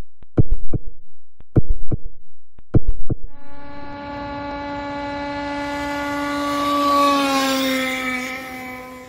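Sharp knocks in pairs for the first three seconds, then a gasoline RC boat's small two-stroke engine running at high, steady revs. It grows louder, drops a little in pitch near the end and fades away.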